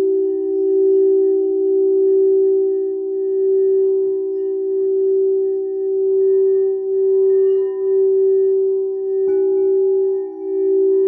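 Frosted quartz crystal singing bowls: the blue bowl is rimmed with a mallet and gives a sustained ringing hum that swells and dips in a slow pulse. About nine seconds in, the yellow bowl is struck and adds a brighter, higher ring over it.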